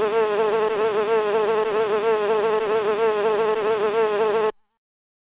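Bee buzzing sound effect for a cartoon bee flying in: a steady buzz whose pitch wavers up and down about four times a second, cutting off suddenly near the end.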